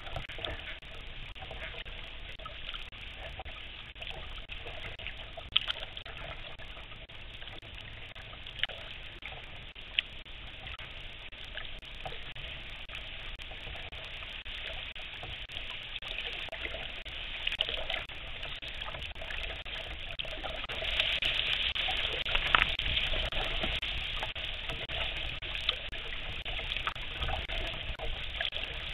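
Water trickling and splashing around a kayak as it is paddled through choppy lake water, with a few short sharp ticks; the water noise gets louder about two-thirds of the way through.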